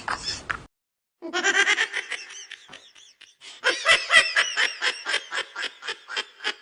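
A person laughing in quick repeated bursts: a short run, a brief pause, then a longer run of laughter.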